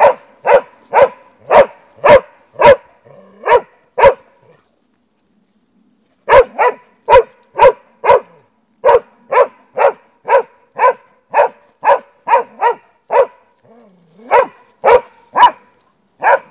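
Slovak hound (slovenský kopov) barking steadily at wild boar, about two barks a second, a hound baying at game. The barking breaks off for about two seconds some four seconds in, then resumes and thins to a few spaced barks near the end.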